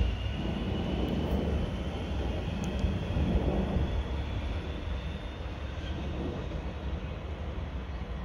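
Alstom X'Trapolis 100 electric suburban train pulling away, its wheel and motor rumble slowly fading as it recedes. A faint whine rises in pitch over the first few seconds as it picks up speed.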